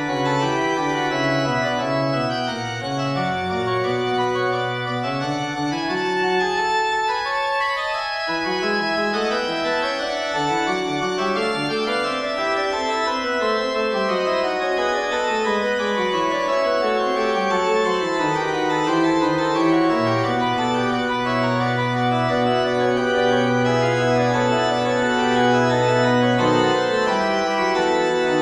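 Organ music: a slow piece of gliding, overlapping organ lines, settling into a long held low chord near the end.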